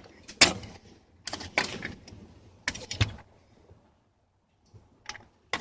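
Handling of an accelerator pedal assembly: several sharp knocks and short clatters of the hard plastic part being picked up and moved, then a pause and two more clicks near the end.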